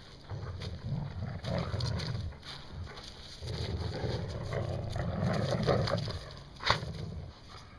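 Labradors play-growling while tugging on a fleece tug toy, low growls in long stretches. A sharp knock about three-quarters of the way through is the loudest moment.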